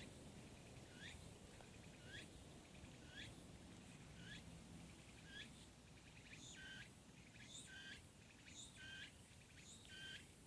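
A bird calling faintly over steady outdoor ambience: short rising chirps about once a second, then from about six seconds in, longer calls that step down in pitch, repeated four times.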